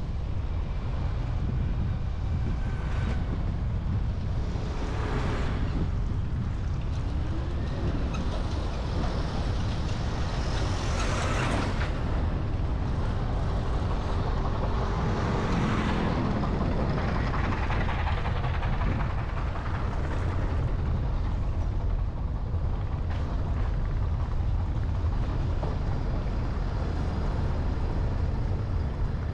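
Street traffic noise: a steady low rumble with vehicles passing now and then, the loudest pass about eleven seconds in.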